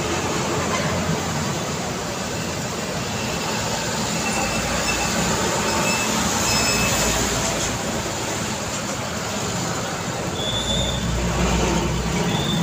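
Road traffic driving past: trucks and cars with steady engine and tyre noise, a light dump truck passing close about halfway through.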